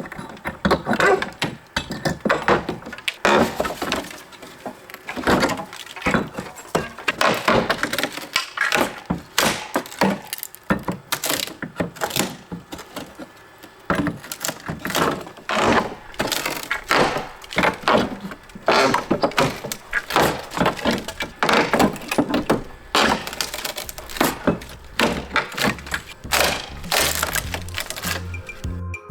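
Old wood siding boards being pried and torn off a house wall, with repeated irregular cracks, knocks and thuds of wood breaking and dropping.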